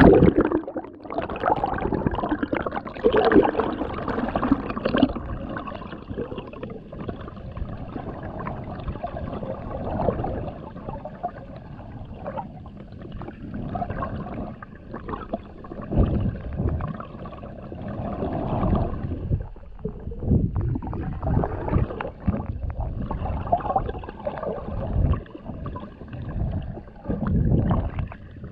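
Muffled underwater sound of a river: water rushing and gurgling around the camera, with irregular low thumps and swells as the diver moves through the current.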